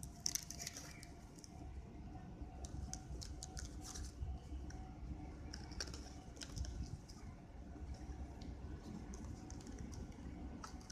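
Paper wrapping and a cardboard box crinkling, with scattered light clicks and taps as hands handle soft rolled pancakes in the box, over a low steady rumble.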